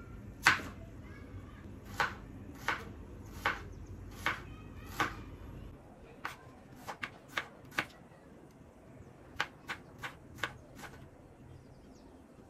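Kitchen knife slicing a red onion on a wooden cutting board: about fifteen sharp knocks of the blade on the board, unevenly spaced with short pauses, the loudest about half a second in.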